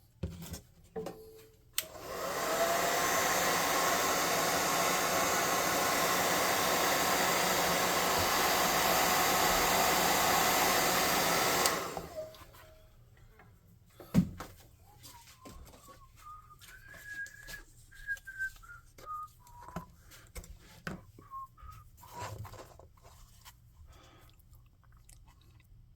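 Hair dryer blowing steadily to dry fresh paint on a miniature, switched on about two seconds in and off again about ten seconds later. Then come a few small taps and clicks.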